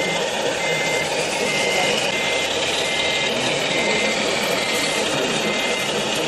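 Reversing beeper of a radio-controlled scale model construction truck: a single high beep repeating a little more than once a second, over a steady background din.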